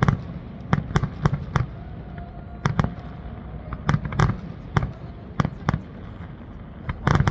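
Aerial firework shells bursting, a string of sharp bangs at uneven intervals, some in quick pairs and a tight cluster near the end, over a low rumble.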